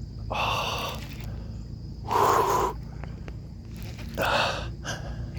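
Three heavy, breathy exhales from a man straining to reel in a big catfish, each under a second and spaced about a second and a half apart.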